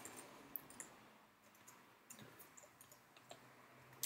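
A few faint, irregularly spaced computer keyboard clicks over near silence, as code is edited.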